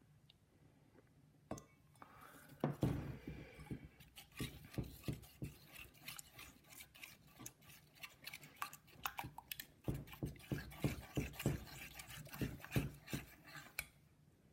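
A spoon stirring a glue, water and Tide activator mixture in a bowl, clicking and knocking against the bowl several times a second, as the mixture starts to thicken into slime. The stirring starts about three seconds in and stops just before the end.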